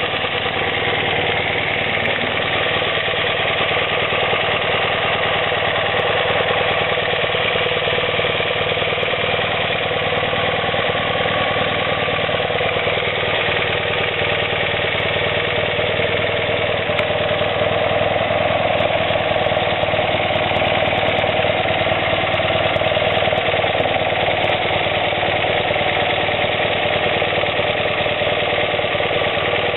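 BMW R90S air-cooled 898 cc flat-twin (boxer) engine idling steadily, heard up close with a busy mechanical clatter.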